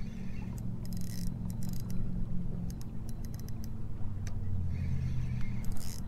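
Boat's trolling motor running steadily with a low hum that drops in pitch about four seconds in, with scattered light clicks from a spinning reel being cranked against a hooked fish.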